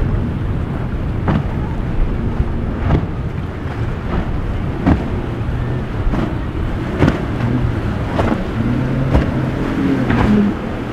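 A Sea Fox center-console boat's outboard engines running through rough inlet water, their steady drone growing stronger in the second half, with wind buffeting the microphone and short bursts of noise about once a second.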